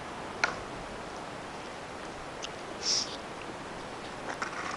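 Faint steady outdoor hiss with camera handling noise: a sharp click about half a second in, a short hiss near three seconds, and a few light ticks.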